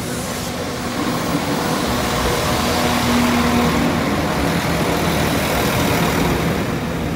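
A Northern class 195 diesel multiple unit passing slowly close by over a level crossing. The underfloor diesel engine runs with a steady note and the wheels roll on the rails, growing a little louder after the first second as the units go past.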